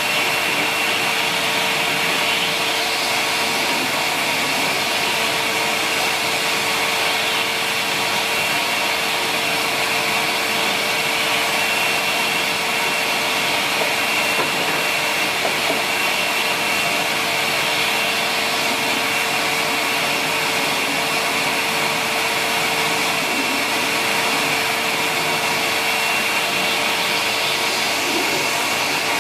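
Sanyo SCA-7AX upright bagged vacuum cleaner running steadily: a constant motor hum and a higher whine over the rush of air.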